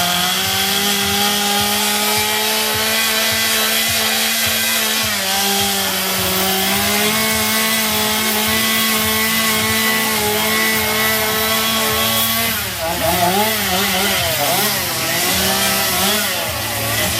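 Chainsaw cutting into a log while carving, running at a steady high speed. About twelve seconds in, its pitch starts rising and falling as the throttle is worked up and down.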